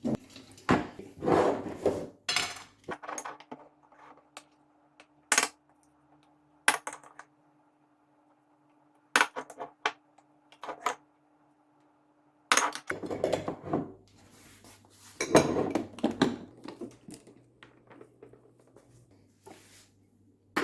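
Scattered metal and crockery clinks and knocks from the espresso machine's portafilter, filter basket, spoon and cups being handled, with clusters of rattling near the start and again about two-thirds of the way in. A faint steady hum runs under the middle stretch.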